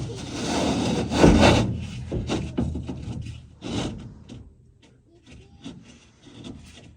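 Wooden wall panel scraping and knocking against the canopy frame as it is worked into place, with a loud rough scrape in the first second and a half, then scattered knocks and scuffs that die down.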